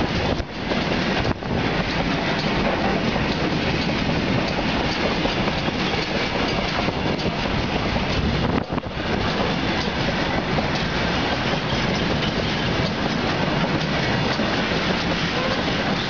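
A RO-RO freight train's loaded flat wagons rolling past close by, a steady loud noise of steel wheels running on the rails.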